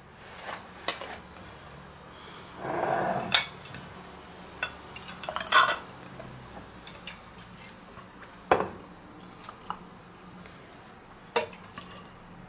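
A metal ladle clinking and scraping against a stainless steel pot and a plastic funnel as tomato sauce is ladled into glass jars, with glass jars and their twist-off lids knocking on a wooden board. The clinks and knocks come one at a time, with a short scrape about three seconds in and the loudest knocks about five and a half and eight and a half seconds in.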